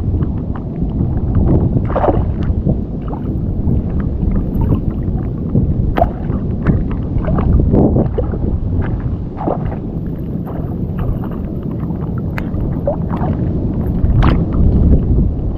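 Strong wind buffeting the microphone as a steady, loud rumble, with scattered short splashes and knocks of water.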